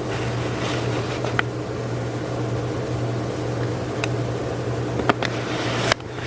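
Craftmade Max Air 29-inch ceiling fan running: a steady motor hum under an even rush of air, with a few light clicks.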